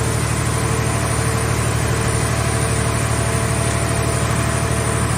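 The power unit of a scrap car-body baler runs at a steady idle: an even, low hum with no change in pitch or load.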